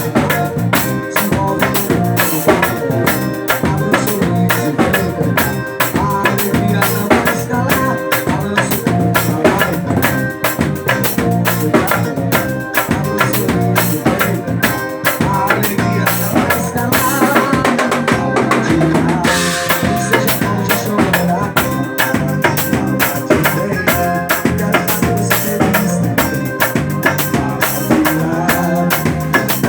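Loud music driven by a busy drum-kit beat, snare and bass drum hitting steadily, with the bright top of the sound dropping out for about a second partway through.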